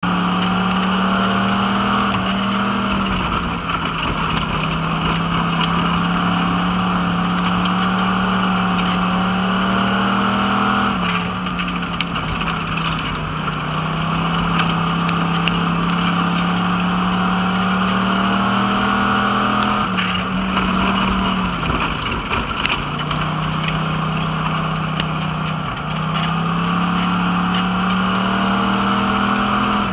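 A Pure Stock dirt-track race car's engine, heard from inside the cockpit, running hard at high revs. Its pitch drops sharply four times as the driver lifts off for the turns, then climbs again down the straights. There are a few sharp knocks or rattles over it.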